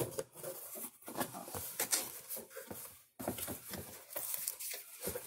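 Cardboard shipping box being cut open and its flaps pulled back: short, irregular scraping and rustling of cardboard and packing tape.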